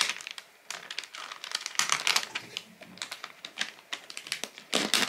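Thin plastic sealing film being peeled off a takeout food tray, crinkling and crackling in quick irregular bursts.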